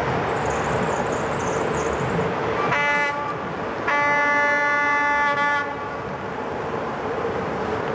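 Locomotive horn on an approaching train: one short blast, then a longer, louder blast about a second later. Both sound over the steady running noise of the oncoming train.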